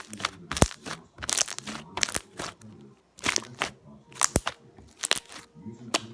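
Slime worked and squeezed by hand, giving a run of sharp, wet clicks and pops, several a second at times, as air pockets in it burst.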